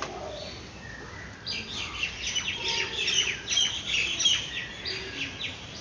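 Small birds chirping, many quick high chirps in a rapid run that starts about a second and a half in.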